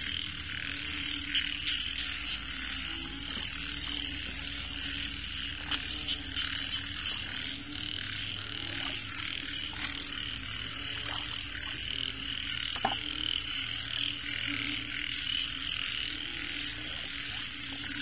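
Dense, steady chorus of many frogs calling, with a lower continuous calling beneath it. A few sharp clicks stand out now and then.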